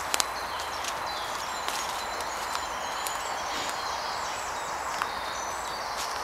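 Footsteps on a leaf-strewn woodland path with steady crunching and scattered clicks, two sharp knocks right at the start. Birds sing thin, high whistled phrases in the trees around.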